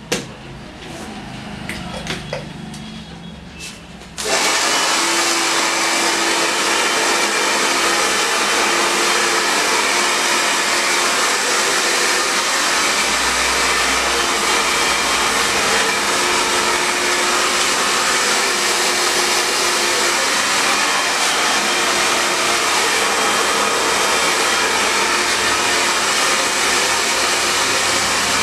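A handheld hair dryer switches on suddenly about four seconds in and then runs steadily at full blow, with a constant low whine under the rush of air, drying wet hair. Before it starts there are only a few faint clicks and handling sounds.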